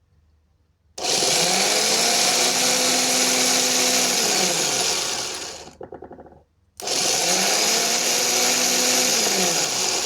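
Used car starter motor spun with no load on a bench test, twice: each run whines up to speed, holds steady for a few seconds, then winds down as power is cut. It spins freely, the sign of a good starter.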